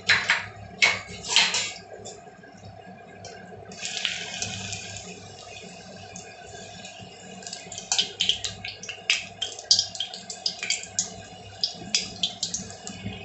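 Maida dough cup deep-frying in hot oil in an iron kadhai: steady sizzling with crackling pops that grow busier in the second half as a wire mesh skimmer works in the oil. A few sharp metal clinks near the start.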